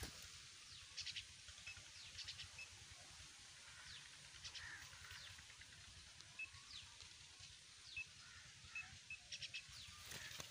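Near silence outdoors: faint bird chirps now and then, in short clusters, over a low steady rumble.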